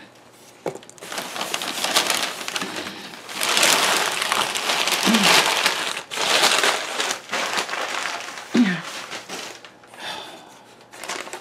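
Packing paper and plastic wrap crinkling and rustling loudly as it is handled in a shipping box, in long stretches with short pauses.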